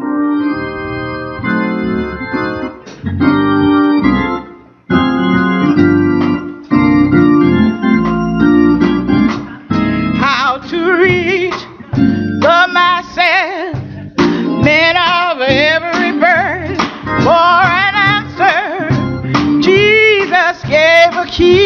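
Gospel song: a keyboard plays held chords, and about ten seconds in a woman's voice comes in singing over it with strong vibrato.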